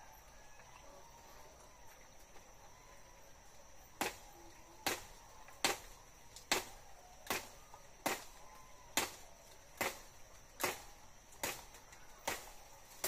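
Repeated chopping blows on a tree branch, starting about four seconds in and going at an even pace of a little more than one stroke a second, about eleven strokes in all. A steady high insect trill runs underneath.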